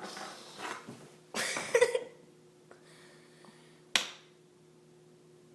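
Scuffling and scraping from a cat tussling with a mini hockey stick: two noisy bursts in the first two seconds, then a single sharp click about four seconds in. A faint steady hum runs underneath.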